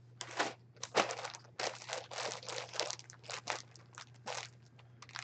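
Plastic packaging crinkling and rustling in irregular crackles as it is handled, over a faint steady hum.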